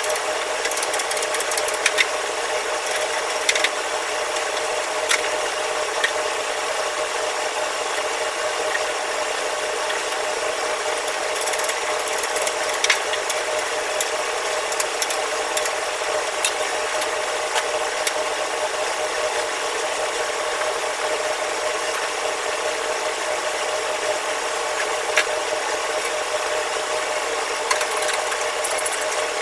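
Metal scraper scraping and knocking on the burner of a commercial wok range, loosening grime that has been soaked soft, with short scrapes and clicks now and then. Under it runs a steady mechanical whir with a constant hum.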